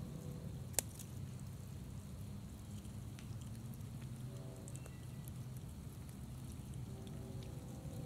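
Scattered light clicks of periodical cicada nymphs (Magicicada, Brood X) falling from the tree, with one sharp, louder click about a second in. A steady low hum runs beneath.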